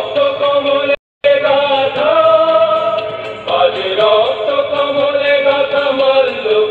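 A song with a singing voice holding long, gently bending notes, the music for a dance. The sound cuts out completely for a split second about a second in.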